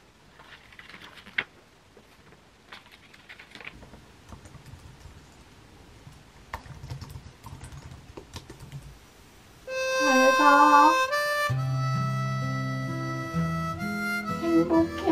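Faint handling sounds and light taps, then about two-thirds of the way through, background music starts: a wavering lead melody over a steady bass line, much louder than what came before.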